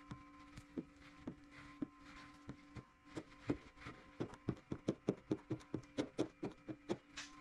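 A squeegee worked over wet paint protection film on a car hood, heard as a string of short clicks and taps. They come about every half second at first and quicken to three or four a second in the second half, over a faint steady hum.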